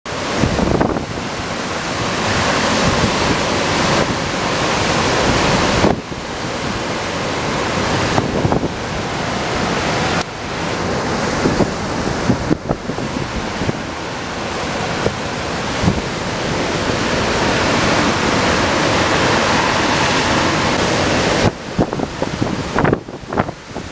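Hurricane-force wind and driving rain, a dense, unbroken rush, with the gusts buffeting the microphone; it turns choppy and gusty near the end.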